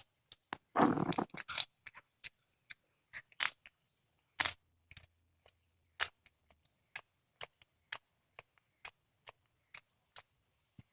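A cat chewing and biting through a squirrel: irregular sharp clicks and crunches of its teeth, with a louder dense bout of chewing about a second in.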